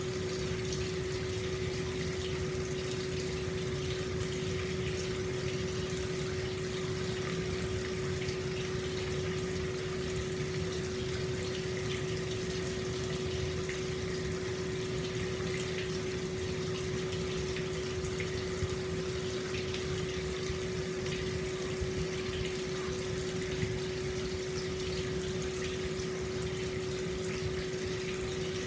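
Hot spring water flowing steadily into an open-air bath, an even splashing and gurgling, with a steady hum running underneath it.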